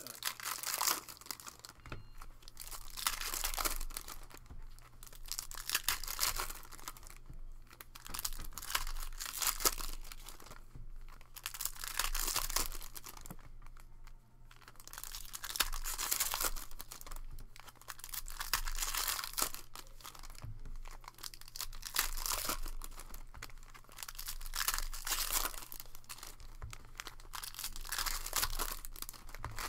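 Foil wrappers of Panini Certified basketball card packs being torn open and crumpled by hand: crinkly tearing in bursts of a second or two, with short pauses between.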